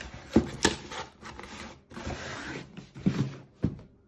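Hands rubbing and sliding a cardboard mailer box over a wooden tabletop, with several sharp knocks as it is handled.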